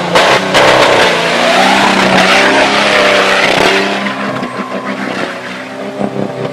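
Off-road Jeep's engine running at high revs as it churns through a deep mud pit, with a loud rush of thrown mud and water. The noise eases about four seconds in while the engine keeps running.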